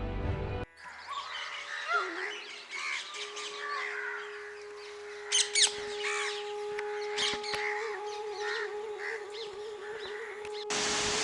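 Several birds chirping and calling, with two loud sharp calls about halfway through and a steady low tone beneath, which wavers near the end. Music cuts off just under a second in, and a rushing noise takes over at the very end.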